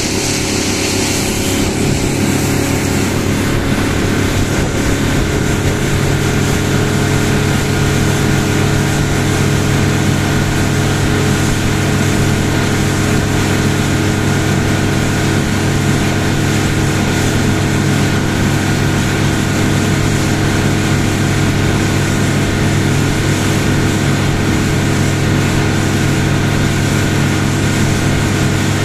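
Small motorboat's engine running steadily under way, with wind and water rushing past the hull. A hiss of spray is louder in the first few seconds.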